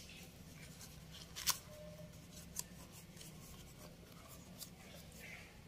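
Banana leaf being handled and folded by hand: faint crinkling and rubbing with a few sharp clicks, the loudest about one and a half seconds in.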